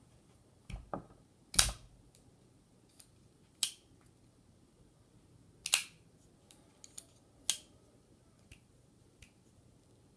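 CJRB Feldspar folding knife being opened and closed repeatedly: sharp clicks as the blade swings out and locks and snaps back shut. The loudest click comes about a second and a half in, with four or five more at uneven gaps and lighter ticks between them.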